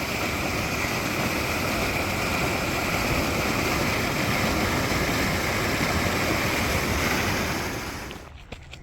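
Fast-running canal water rushing steadily. About eight seconds in the rush drops away quickly and footsteps take over.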